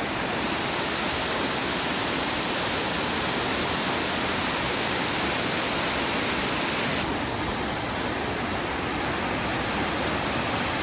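Waterfall, its falling water making a steady, even rush up close.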